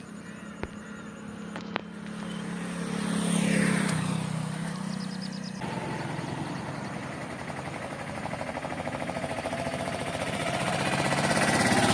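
Motor vehicles passing on a road: one engine hum swells and fades a few seconds in, then a second engine with a fast, even pulse comes closer and grows louder toward the end. Two sharp clicks sound in the first two seconds.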